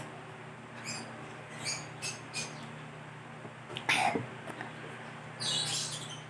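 A girl sniffling and catching her breath in short gasps from the burn of very spicy hot sauce, with a louder cough-like gasp about four seconds in and a longer breath out near the end, over a steady low hum.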